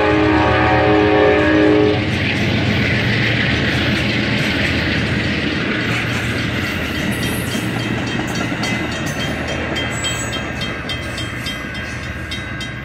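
Amtrak passenger train's locomotive horn sounding a steady chord that cuts off about two seconds in. Then the passenger cars roll past, with wheels clicking over the rail joints, fading as the train pulls away.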